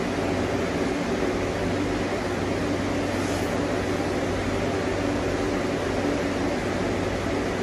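Steady droning hum with a rush of air from a room cooling appliance, running at an even level without change.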